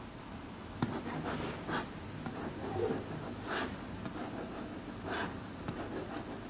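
Stylus tapping and scraping on an interactive whiteboard as lines are drawn: a sharp tap about a second in, then several short, scratchy strokes.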